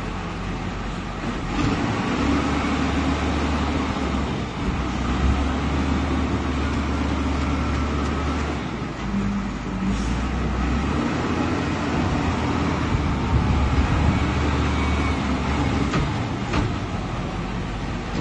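Wheel loader's diesel engine running under load as it drives and pushes rubbish with its bucket, its low rumble swelling and easing in long stretches. A few sharp knocks come through, two of them near the end.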